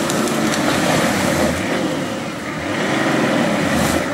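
Off-road 4x4 engine running under load as the vehicle crawls through tall grass, its note rising and falling several times with the throttle.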